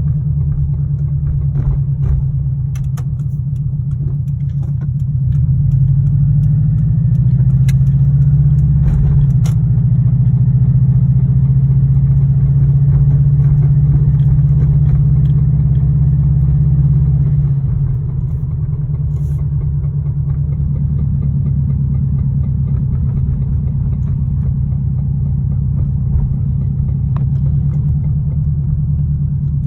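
2002 Subaru WRX's turbocharged flat-four engine running with rod knock, a rhythmic knock that is the sign of a worn connecting-rod bearing. It runs a little louder and higher from about six seconds in until about eighteen, then settles back to idle.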